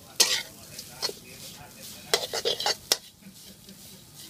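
Metal spatula scraping and clinking against a wok while stirring minced meat that is being dry-roasted without oil, with a faint sizzle between the strokes. The strokes come near the start, once about a second in, and in a quick run from about two to three seconds in.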